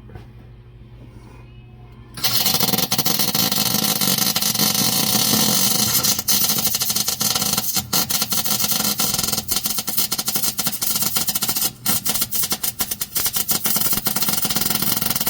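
MIG welder arc crackling and hissing steadily for about thirteen seconds, starting about two seconds in and cutting off abruptly at the end: welding onto a broken cylinder head bolt in a Ford flathead V8 block to get it out.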